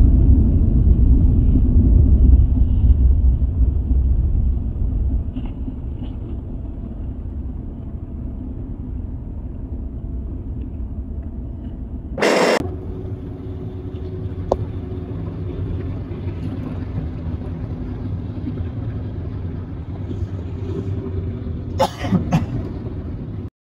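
Road and engine noise of a car heard from inside the cabin at highway speed: a steady low rumble, louder for the first few seconds, broken by a brief click about twelve seconds in and a couple more near the end.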